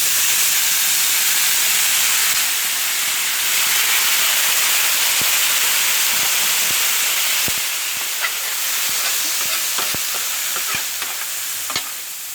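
Pre-steamed rice with peas and carrots sizzling loudly in butter and oil on a hot Blackstone flat-top griddle. The sizzle eases a little in the second half, with occasional light clicks from about five seconds in.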